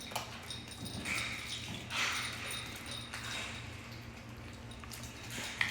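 A dog chewing and eating chicken in short bouts, over a faint steady low hum.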